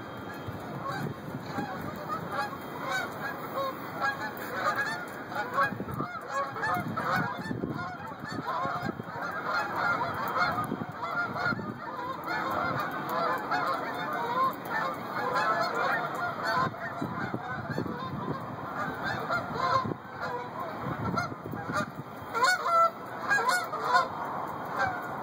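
A large flock of Canada geese honking as they fly overhead, many calls overlapping in a continuous chorus, loudest near the end.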